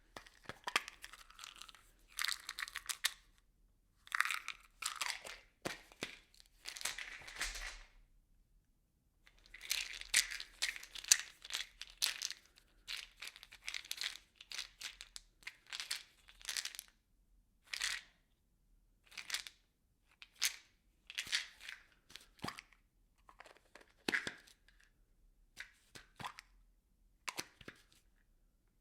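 Small hard objects rattling and clattering inside a plastic bottle, shaken in a long series of irregular bursts with brief pauses between them, and the thin plastic crackling as it is handled.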